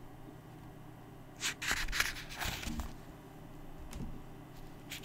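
A book page turned by hand: a rustle of paper lasting about a second and a half, followed by a couple of light ticks.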